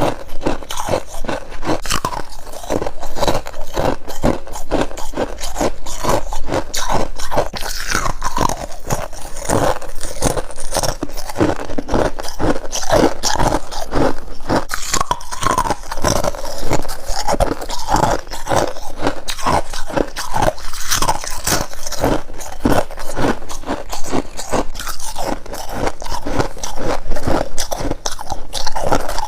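Freezer frost being bitten and chewed close to the mouth: a dense, continuous run of crisp crunches and crackles with short squeaky notes as the packed frost compresses.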